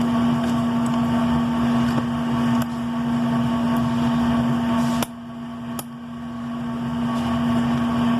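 Steady drone of running workshop machinery with a constant low hum tone. The noise drops suddenly about five seconds in and builds back up over the next two seconds, with a faint click just after the drop.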